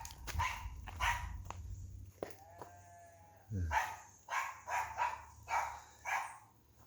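Guard dog barking repeatedly, about two barks a second, with a pause in the middle where a brief drawn-out cry is heard.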